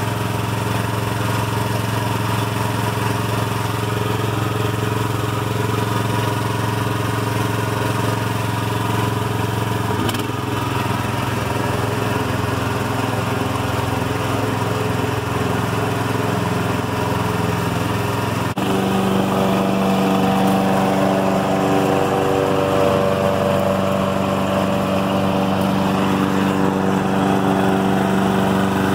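Gasoline engine running steadily at a constant speed. About two-thirds of the way through, the sound shifts suddenly to a slightly louder, higher-pitched note.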